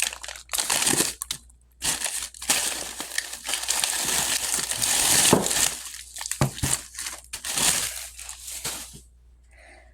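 Plastic bags and wrappers of frozen food packages crinkling and rustling as they are handled, in irregular bursts with a couple of knocks about six and a half seconds in; the rustling stops about nine seconds in.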